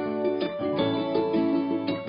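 Background music of plucked strings, with notes picked out in a light, even rhythm.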